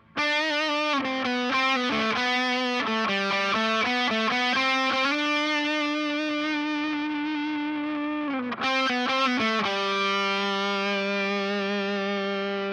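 Electric guitar played through its Seymour Duncan Antiquity bridge humbucker in the bridge position: a quick run of single notes, then a long held note, and a final note left ringing.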